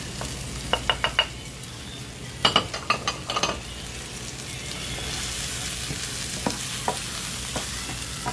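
Onions, yellow tomato and spices sizzling in hot oil in a skillet, with a few sharp taps about a second in and a cluster of knocks a little later as the spices go in. The sizzle grows louder about halfway through as the mix is stirred with a wooden spatula.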